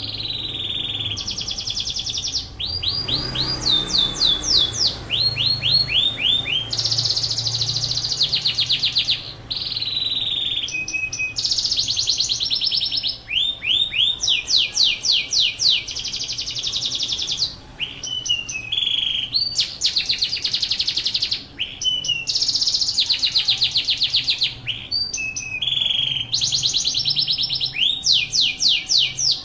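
Yorkshire canary singing continuously: high-pitched phrases of rapid trills and rolls, each a second or two long, running one into the next with only brief pauses.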